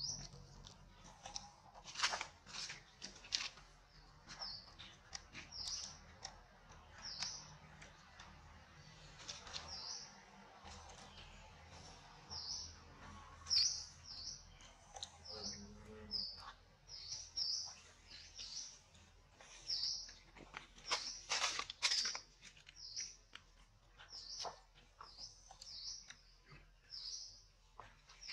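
A small bird chirping over and over: short, high chirps about once a second. Occasional crackly rustles of dry leaves, the loudest about two seconds in, near the middle and a few seconds after.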